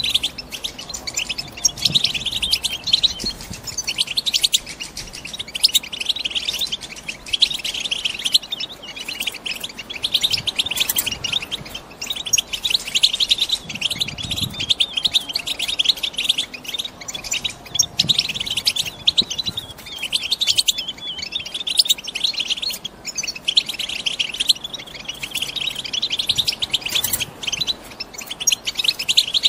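European goldfinches twittering: a continuous stream of rapid high chirps and trills. It is the chattering call of female goldfinches, used to set a caged male singing.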